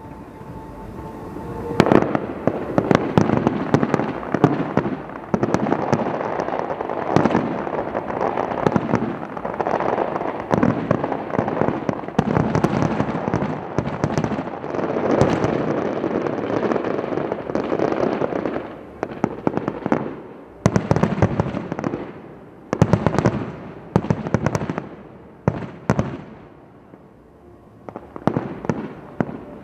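Aerial firework shells bursting in a dense barrage of booms and crackle. About twenty seconds in it thins to separate booms with short gaps, and a fresh salvo starts near the end.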